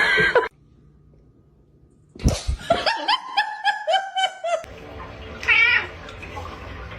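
A cat giving a quick run of short, pitched meow-like notes, then a single wavering call about five and a half seconds in.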